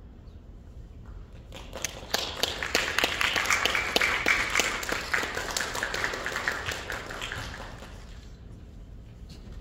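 Audience applause that starts about a second and a half in, builds quickly, holds, and then dies away near the end.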